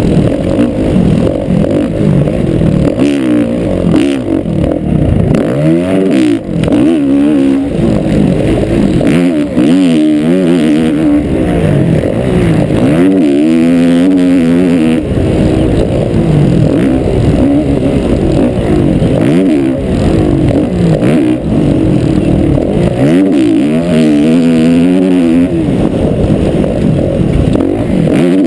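Motocross bike's engine, recorded on board at race pace, its pitch climbing and dropping again and again as the throttle is opened and closed and the gears are changed.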